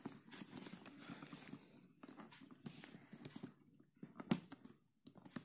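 Faint handling noises of a plastic action-camera mount and waterproof housing being fitted onto a motorcycle helmet: light rustling and small taps, with one sharper plastic click about four seconds in.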